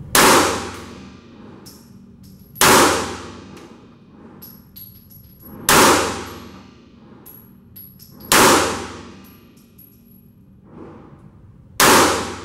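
Ruger American Pistol 9mm fired five times, slow aimed shots about every three seconds. Each shot rings out with a long echo off the concrete walls of the indoor range.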